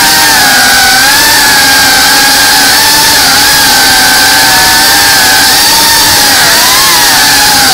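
Small FPV drone's motors and propellers whining loudly from its onboard camera, the pitch wavering up and down with the throttle as it banks between trees.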